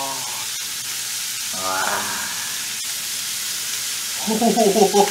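Steady sizzling of food frying in hot pans: a steak in butter and garlic, and diced vegetables in a skillet.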